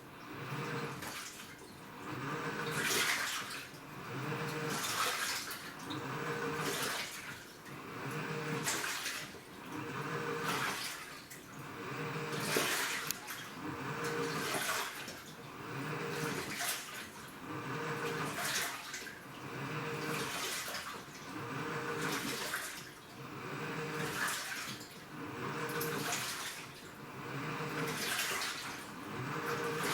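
Washing machine in its wash cycle: water sloshing in the drum, swelling and falling about every two seconds, with a low motor hum under each surge.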